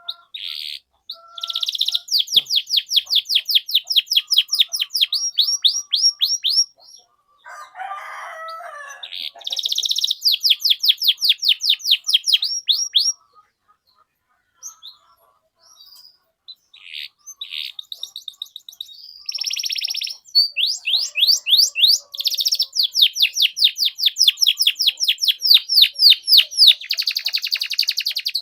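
Domestic canary singing long runs of rapid, evenly repeated high chirps, 'cuit cuit', about five or six a second. Each run sweeps downward note by note and lasts several seconds, with short pauses between runs. A lower, rougher phrase comes about eight seconds in.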